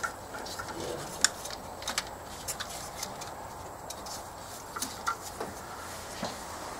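Scattered light clicks and taps of hand work on a car's dash parts, about ten in all, the sharpest a little over a second in, over faint room noise.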